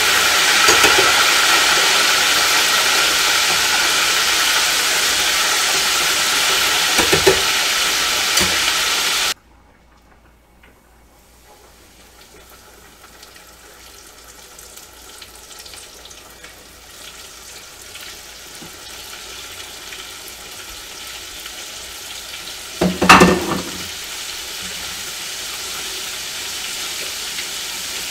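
Battered portobello mushrooms deep-frying in hot oil in an electric deep fryer, with a loud, steady sizzle. The sizzle cuts off abruptly about nine seconds in, then comes back quieter and slowly grows. A short knock sounds about two-thirds of the way through.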